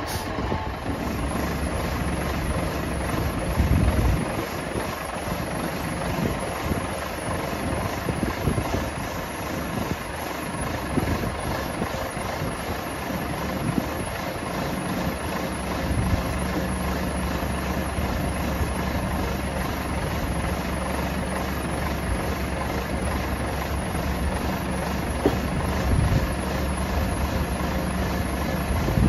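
Scania R113 truck's diesel engine running steadily while the truck stands with its concrete mixer drum turning. The low engine note grows stronger about halfway through.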